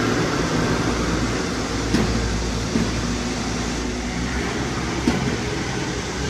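A self-loading concrete mixer truck's engine running steadily with a low hum, with a few short sharp knocks.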